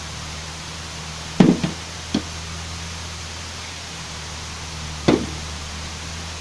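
Ford 5000 tractor engine running steadily under the load of a rotary tiller, heard as a low drone. Sharp knocks close to the microphone cut through it: a quick cluster about a second and a half in, another soon after, and one more about five seconds in.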